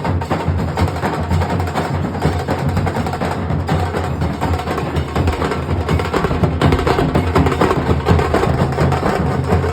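Nasik dhol ensemble drumming: large dhol drums beating a deep, steady boom under a dense stream of fast, sharp strokes, with no break.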